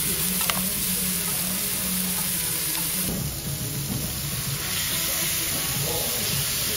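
Pork belly and kimchi sizzling steadily on a hot Korean barbecue griddle, with a single sharp click about half a second in.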